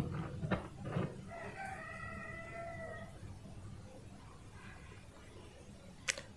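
A rooster crowing in the background: one drawn-out call of about a second and a half. Near the start there are a few light taps and crackles as a piece of crispy fried chicken is lifted from the plate.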